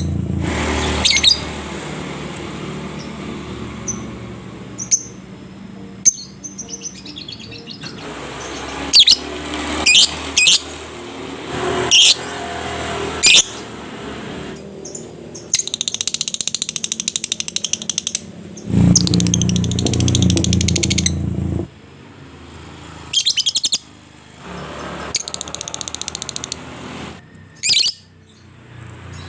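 Lovebird calling: sharp single chirps and several long, very fast chattering trills (the 'ngekek' call), the longest lasting about three seconds.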